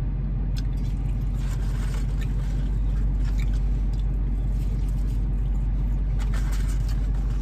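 Steady low drone of an idling car, heard from inside the cabin, with faint crunching of fries being chewed.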